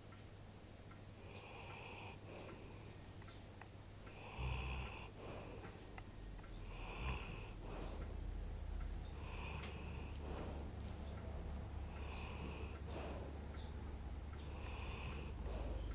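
A 13-year-old black Labrador retriever snoring faintly in its sleep, about one breath every two and a half seconds. A low rumble comes in under it about four seconds in.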